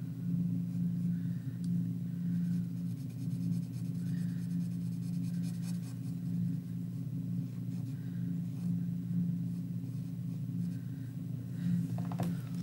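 Fat-tip Sharpie permanent marker rubbing on paper in short, faint scratchy strokes while colouring in a small area solid black, over a steady low hum.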